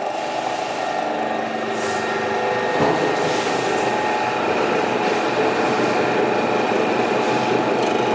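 SAFO woodworking sharpening machine running under power: a steady, dense mechanical hum with several held tones, getting a little louder about three seconds in.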